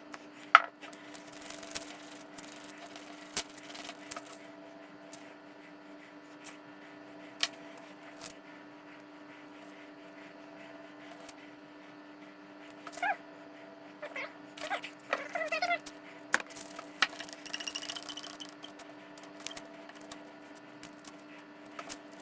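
Steady electrical hum with scattered light clicks and knocks from handling tools and parts on a workbench, and a few short squeaks in the second half.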